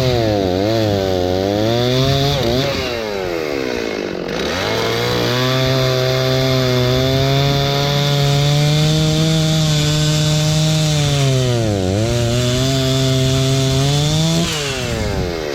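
Stihl chainsaw cutting through a log at high revs. Its pitch dips several times as the chain bites and recovers, then winds down near the end. The chain is sharp and cuts quickly.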